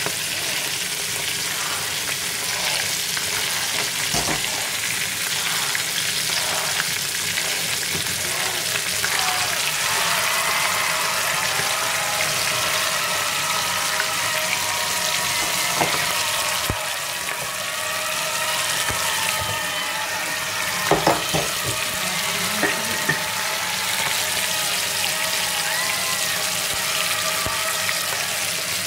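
Hot oil sizzling steadily around two whole fish frying in a pan, with a few brief knocks about two-thirds of the way through.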